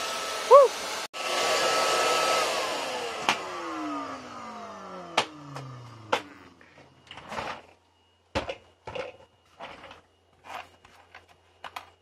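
Wet/dry shop vacuum running, with a short squeal about half a second in. The motor is then switched off and winds down, its whine falling steadily in pitch over a few seconds. Sharp clicks and knocks follow as the vacuum head is handled and lifted off.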